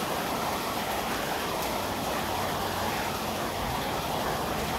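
Steady hiss of rain falling, even and unbroken.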